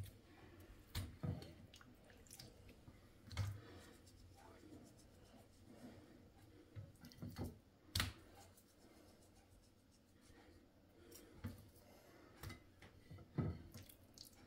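Hands handling raw deboned chicken thighs on a wooden cutting board: scattered faint taps and light knocks, the sharpest about eight seconds in.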